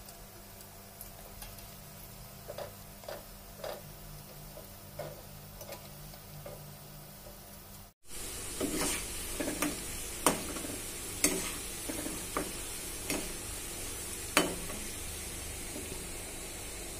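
Nimki dough pieces frying in hot oil in a kadai, sizzling, with light clicks in the first half. After a cut about eight seconds in, the sizzling is louder and sharp clinks come from a metal slotted spoon stirring against the pan.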